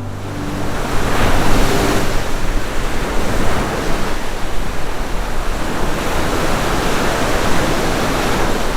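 Ocean waves breaking in a steady rushing wash, swelling about a second in.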